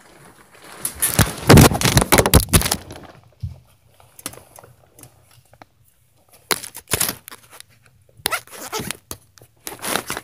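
Loud, rapid knocks and bangs in two bursts, one about a second in and another from about six and a half seconds in, over a low hum. The uploader takes them for upstairs neighbors stomping.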